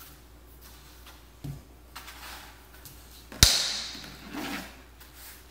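Small plastic toy broom swishing and knocking on a hard floor, with one sharp knock about three and a half seconds in.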